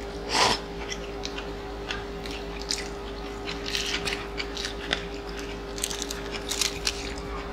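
Close-miked eating: a short loud slurp of glass noodles about half a second in, then crisp crunching of a lettuce wrap and wet chewing, many small crackles spread through the rest. A steady low hum sits underneath.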